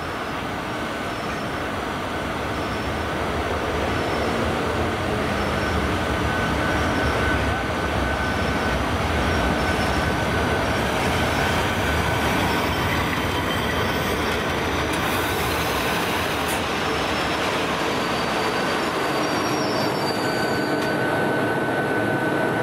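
FS E656 electric locomotive with its train of passenger coaches running past close by, a steady rumble of wheels on the rails that grows louder over the first few seconds as it draws level. A thin high squeal comes and goes, for a few seconds in the middle and again near the end.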